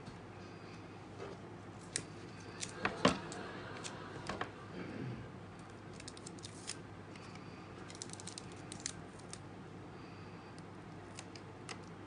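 Light clicks and taps of a cereal-box cardboard papercraft figure being handled and set on a table, its paper parts pressed and adjusted by hand. The loudest taps come about two to three seconds in, with another small cluster of clicks later on.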